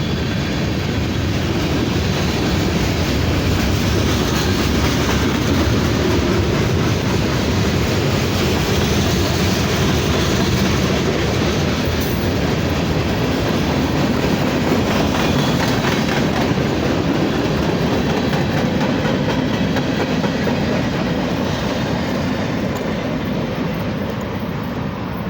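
Freight cars of a manifest freight train rolling past in a steady rumble of steel wheels on rail, easing off near the end.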